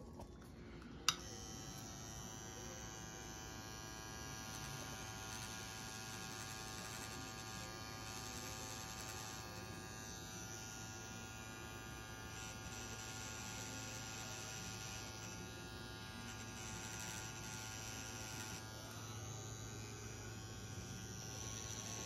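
A pen-style rotary tattoo machine switches on with a click about a second in, then buzzes steadily as the needle is worked into the skin.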